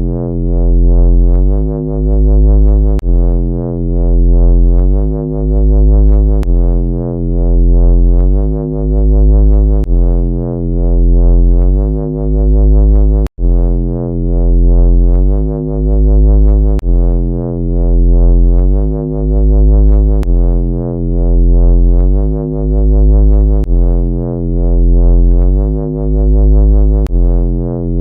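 Synthesized flying-saucer sound effect: a loud, low electronic drone that pulses in volume about every 1.7 s, its pitch stepping upward twice before the loop starts over, roughly every three and a half seconds. It cuts out briefly about 13 seconds in.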